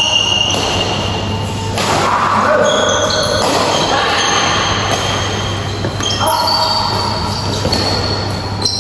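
Badminton rally in a large hall: sharp racket strikes on the shuttlecock every second or two, over music and voices in the background.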